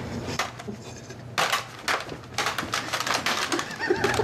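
Rapid, irregular clicking and clattering of two lacrosse helmets' metal facemasks knocking and scraping together. It begins about a second and a half in and runs in quick clusters of clicks.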